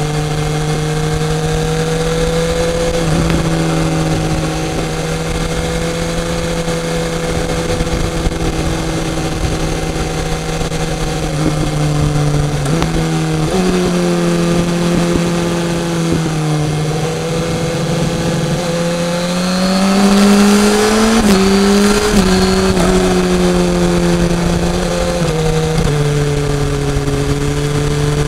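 A BMW S1000R's inline-four engine running under way, its pitch holding steady and then stepping up or down suddenly several times. About two-thirds of the way in it climbs and grows louder under acceleration, then drops back to a steady pitch.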